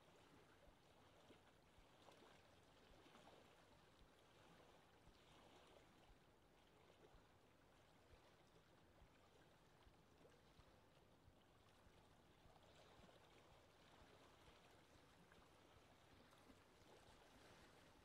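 Very faint lapping water: a soft wash that swells and fades every few seconds, with small splashy ticks.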